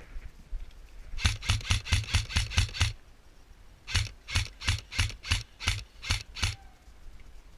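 Airsoft gun firing single shots close to the microphone in two rapid strings: about nine quick shots, a pause of about a second, then about nine more at a slightly slower pace. Each shot is a sharp crack with a low thump under it.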